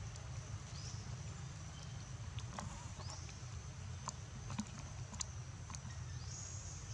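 Quiet outdoor ambience: a steady low rumble and a faint high steady whine, with three short high chirps and a scatter of sharp clicks in the middle.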